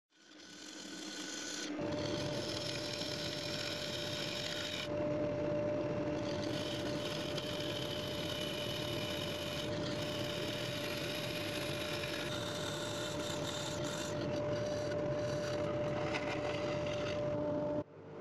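Wood lathe running with a steady whine while a hand-held turning tool cuts inside a hollowed walnut vessel, a continuous scraping hiss as the inner sides and bottom are trued up. It fades in at the start and cuts off abruptly near the end.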